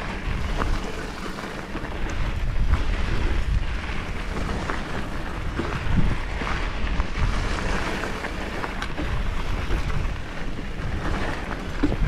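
Wind buffeting the microphone of a camera on a mountain bike riding a dirt trail, a heavy low rumble under the whir of the ride, with scattered short knocks and rattles from the bike.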